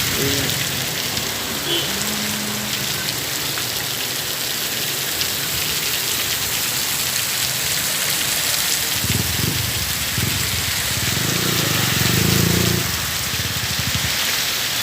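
Heavy rain pouring down steadily, a dense even hiss. A low rumble swells from about nine seconds in and fades out near the end.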